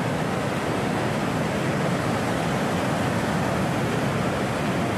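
Sea surf washing and foaming over rocks: a steady rushing noise.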